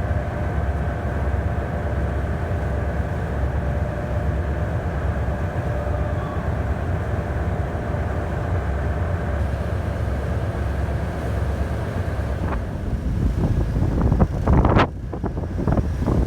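A steady low engine drone with wind buffeting the microphone. Near the end it gives way to a few sharp knocks and thuds.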